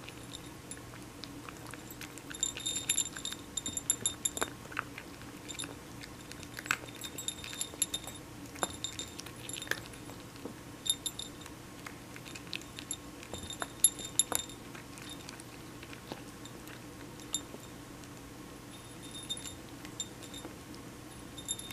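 A cat eating small dry kibble from a saucer: irregular bursts of crunching and clinking, broken by short pauses.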